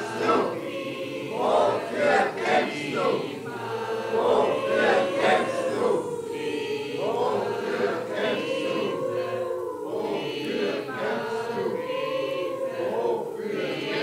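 An amateur choir of many voices singing and chanting together in overlapping lines. A few pulsing, rhythmic accents in the first seconds give way to long held notes.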